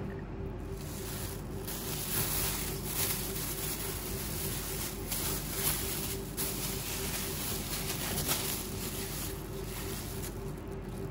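Thin plastic food storage bag crinkling and rustling in irregular bursts as a ball of bread dough is pushed into it and wrapped by hand, over a steady low hum.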